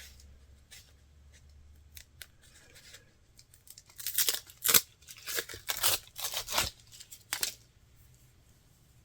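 Dried deer sinew being pulled apart into long strips by hand: a run of short dry ripping sounds, clustered from about four seconds in to near the end.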